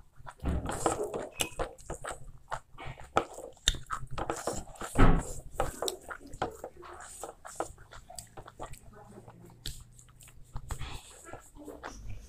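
Close-miked eating sounds: wet chewing, lip smacks and fingers mixing rice with beef curry on a plate. A louder thump about five seconds in.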